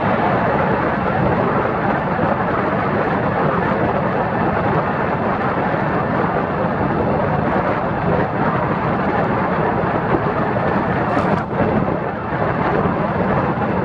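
Steady rush of wind and road noise from riding in a small open vehicle at speed, with the wind buffeting the microphone. There is a brief dip about eleven seconds in.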